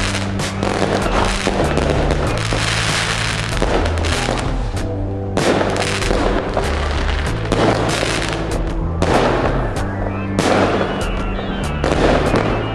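The PXB 2118 Arrow consumer fireworks battery is firing. Its rapid cracks and bursting shots come one after another, mixed with background music that has a bass line stepping between notes.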